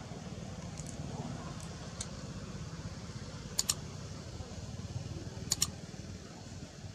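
Two quick double clicks of a computer-mouse sound effect, one about halfway through and one near the end, over a steady low background rumble.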